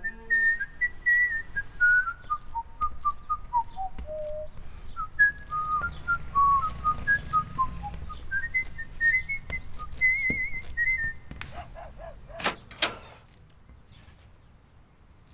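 A person whistling a melody that steps down and then climbs back up, with a quick warbling trill about ten seconds in, before stopping. Two sharp clicks follow shortly after.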